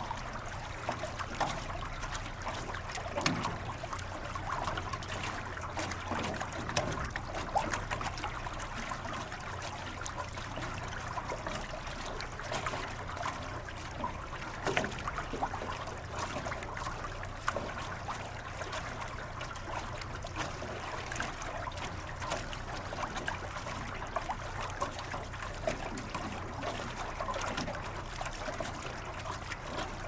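Water trickling and gurgling close beside a boat, an unbroken run of small irregular splashes and drips over a low steady hum.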